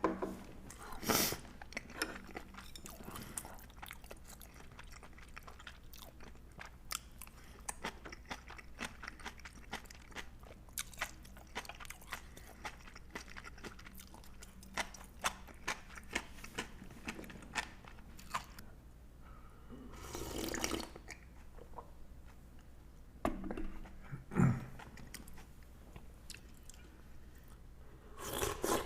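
Close-miked chewing and crunching during a ramen meal with kimchi and pickled radish, with many small wet mouth clicks. There is a louder, longer noisy sound about twenty seconds in, and a few louder chews shortly after.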